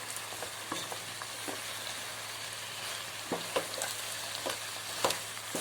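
Chicken pieces in oil and masala sizzling steadily in a pan while a spatula stirs them, scraping and clicking against the pan now and then. The water has cooked off, so the meat is frying in its own oil.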